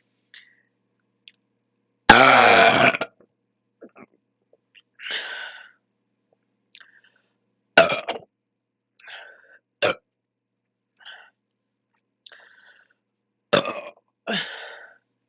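A person's long, loud belch about two seconds in, lasting about a second, brought up by chugging canned drinks. Several shorter, quieter sounds follow it.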